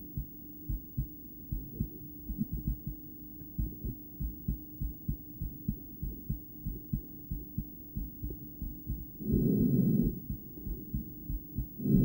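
A woman's heartbeat heard through a stethoscope: a regular run of low lub-dub thumps over a faint steady hum. About nine seconds in, and again at the very end, a loud breath rubs over the stethoscope and briefly covers the beats.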